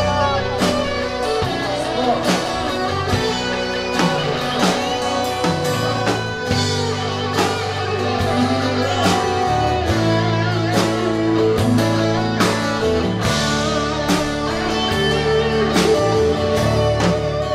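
Live band playing: electric and acoustic guitars, bass guitar and drum kit, with regular drum hits under sustained guitar notes.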